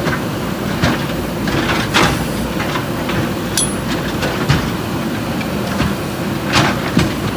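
JCB 3DX backhoe loader's diesel engine running steadily under load, with several sharp metal clanks and knocks from the backhoe's arm and bucket as it breaks up the old bridge.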